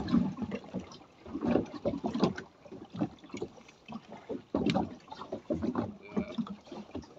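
Choppy sea slapping and knocking against a small boat's hull in a swell, in irregular bursts, with a loud one right at the start.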